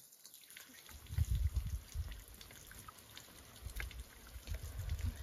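Water running from a pipe into a concrete basin, trickling and dripping. A deep low rumble swells twice, about a second in and near the end, louder than the water.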